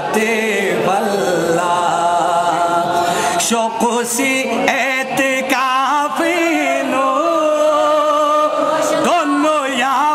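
A man reciting a manqabat (Urdu devotional praise poem) unaccompanied, in his voice alone, into a microphone. He sings long chanted phrases with ornamented, wavering held notes.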